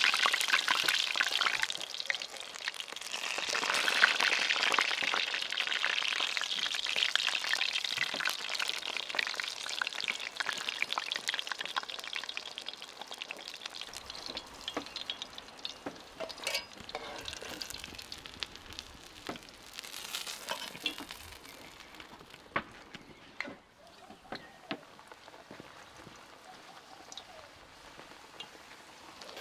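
Chebureks deep-frying in hot oil in a cast-iron pan: a dense sizzling crackle that swells about four seconds in and dies down over the second half. A few sharp clicks of metal tongs against the pan come later on.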